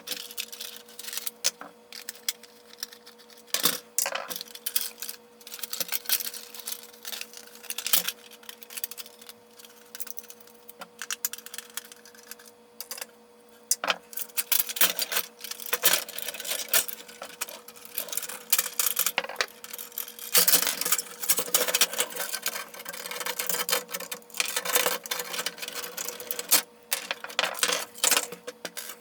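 Hard plastic parts of a vintage Kenner Slave I toy clicking, knocking and clattering at irregular intervals as it is taken apart, over a faint steady hum.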